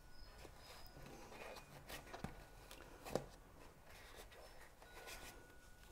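Faint handling noises of fingers working in a foam-lined box, pulling a lanyard out of its foam slot, with one soft knock about three seconds in.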